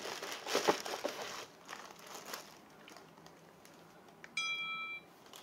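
Plastic packaging crinkling and rustling with a few sharp clicks, dying away after about a second and a half. Near the end a short electronic alert tone from a smartphone sounds for about half a second.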